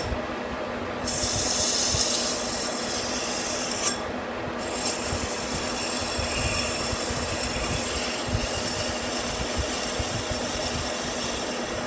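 Metal lathe running at about 370 RPM with a cutting tool scraping into the spinning 1018 cold-rolled steel part, a high hiss over the steady hum of the machine. The hiss drops out for about a second at the start and again briefly about four seconds in, as the tool comes off the work.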